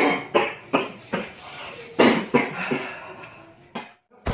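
A person coughing repeatedly: a quick run of about four coughs, then more coughs from about two seconds in.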